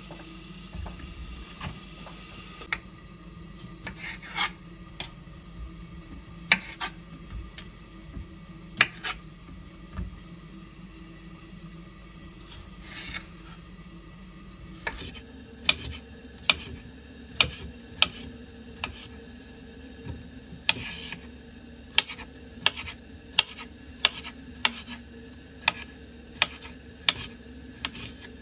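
Kitchen utensil sounds: a utensil clinking and scraping against dishes or a pan with scattered sharp clicks. About halfway through, a steady run of sharp knocks begins, roughly one every 0.7 seconds.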